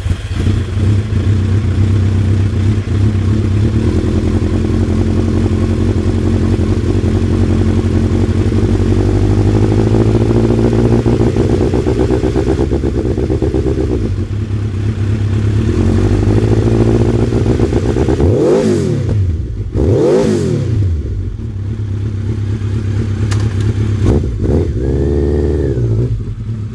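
Kawasaki Z1000's inline-four engine through a Muzzy aftermarket exhaust, idling steadily. About two-thirds of the way through it is blipped twice, the revs rising and falling quickly, and near the end it is given one more rev.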